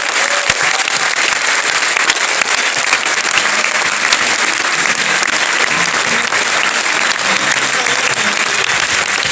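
Audience applauding steadily, welcoming a speaker onto the stage.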